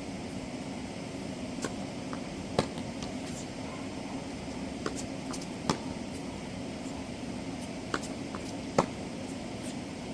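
Tennis balls being struck in a rally: a sharp hit about every three seconds, each with a fainter knock just before it, over a steady background hum.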